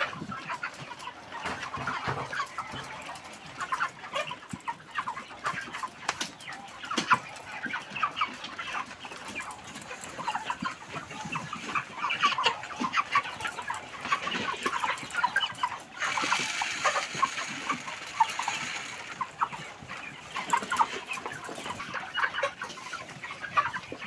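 A large flock of white broiler chickens clucking and calling continuously, many short overlapping calls with a few sharp clicks among them.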